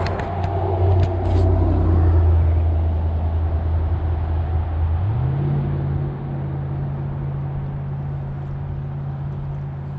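Spinning reel being cranked to retrieve a spinner lure, a steady gear whir. About halfway through it steps up in pitch as the cranking speeds up, then holds.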